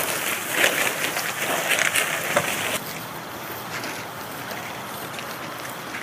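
People's feet wading and swishing through wet marsh grass and shallow water, in irregular steps; about three seconds in it gives way abruptly to a quieter, steady hiss.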